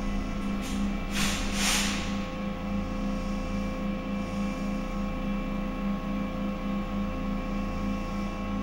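Steady electrical hum of a Stadtbahn light-rail car, with a low pulsing drone and several held whine tones. There are two short hisses about a second in.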